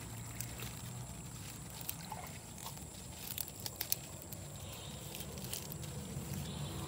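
Scattered small snaps and rustles of sawi (mustard greens) being picked by hand, over a faint low outdoor rumble.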